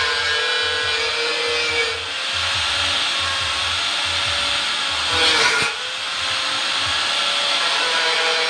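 Angle grinder with a cut-off disc cutting through rectangular metal tube, its motor whining steadily. About five seconds in, the whine sags in pitch and briefly gets louder as the disc bites harder into the metal.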